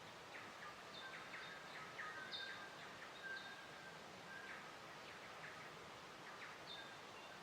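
Faint nature ambience: birds chirping with many short calls and brief whistles, over a steady background hiss.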